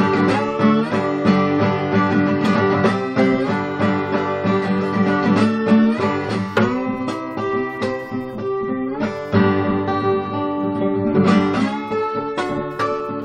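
Acoustic guitar playing an instrumental passage of a blues tune: a quick run of plucked notes ringing over a steady bass line.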